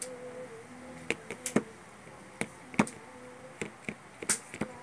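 A finger poking and stirring wet slime in a small plastic cup, making irregular sticky clicks and squelches, over a faint buzzing hum that comes and goes.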